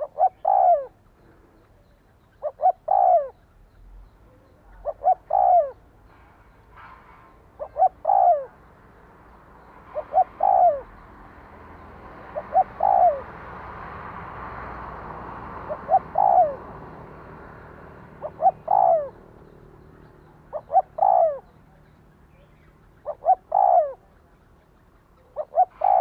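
Spotted dove cooing: a phrase of two or three short notes ending in a longer falling coo, repeated about every two and a half seconds. A faint hiss swells and fades in the middle.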